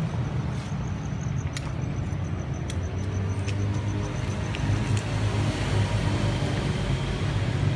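Steady road traffic: car engines running close by, a low even hum with an overall hiss and a few faint clicks.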